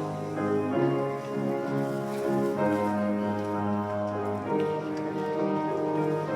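Church postlude music: held chords on keyboard instruments, moving from chord to chord about once a second.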